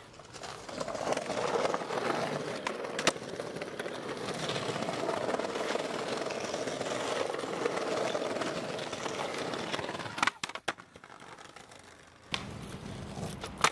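Skateboard wheels rolling over brick pavers, a steady rumble, with a sharp clack of the board about three seconds in and a few more about ten seconds in.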